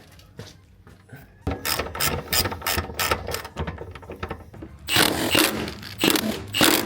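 Hand ratchet clicking in quick strokes on a 19 mm diff-mount bolt under a BMW E30, starting about a second and a half in and growing louder near the end.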